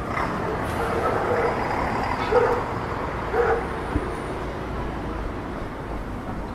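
Outdoor street ambience: a steady traffic hum, with several short, sharp sounds over the first few seconds, the loudest about two and a half seconds in.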